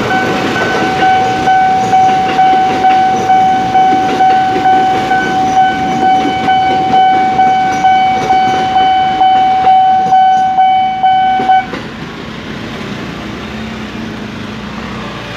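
Railway level-crossing warning bell ringing a steady tone that pulses about twice a second, over the clatter of an electric KRL commuter train passing at speed. The bell cuts off abruptly about twelve seconds in as the crossing clears, leaving a much quieter background.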